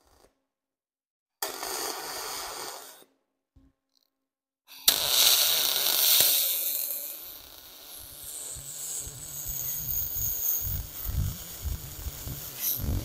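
Aluminium being MIG welded with a spool gun: the arc hisses and crackles in two bursts. The second burst starts sharply about five seconds in and fades, followed by a low, uneven rumble in the second half.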